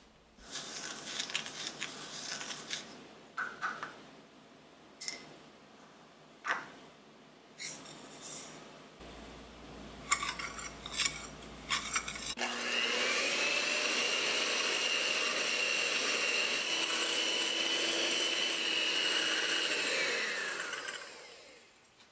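A whisk scraping and tapping against a ceramic bowl, with a few sharp clinks. About twelve seconds in, an electric mixer's whisk starts beating egg whites and sugar, running steadily with a high whine, then winds down and stops near the end.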